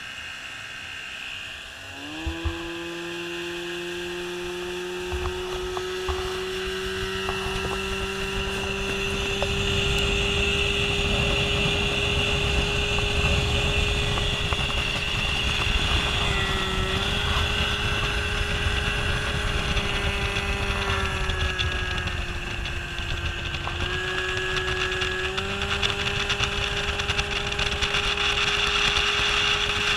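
Mercury outboard motor on a bass boat throttling up about two seconds in, then running steadily at speed, with wind and water rushing past the hull. Its pitch dips briefly and recovers twice in the second half.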